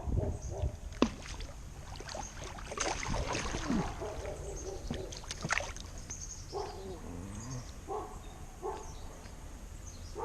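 Handling noises on a kayak: scattered light knocks and clicks of gear and hands against the hull, over a low steady background rumble.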